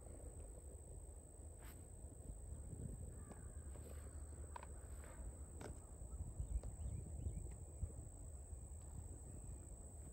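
Quiet field ambience: a steady high-pitched insect drone over a low wind rumble, with a few faint ticks.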